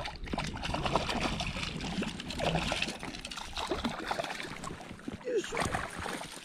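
Hooked rainbow trout splashing and thrashing at the water's surface as it is played in toward the bank, a run of small irregular splashes.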